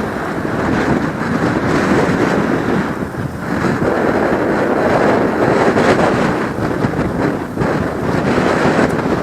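Loud, steady, rushing noise of wind buffeting the microphone.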